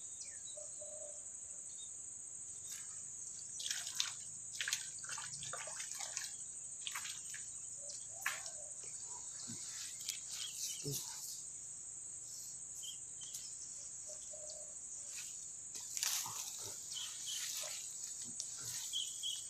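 Steady high-pitched insect chirring, with irregular bursts of rustling and splashing as a hooked snakehead is pulled in through the grassy water.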